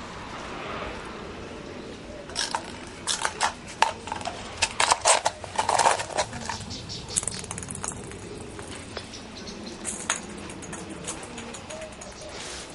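Ping-pong ball bouncing and skittering on a tile floor: a dense run of quick, irregular clicks from about two seconds in to past the middle, then a few scattered taps.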